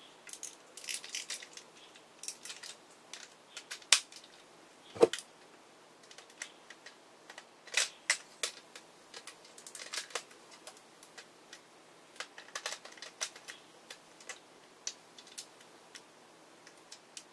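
Hard plastic toy parts being handled: an irregular string of small clicks, clacks and scrapes, with two sharper knocks about four and five seconds in, as pieces of a transforming toy train robot are tried in place and refuse to snap together because they are being fitted in the wrong spot.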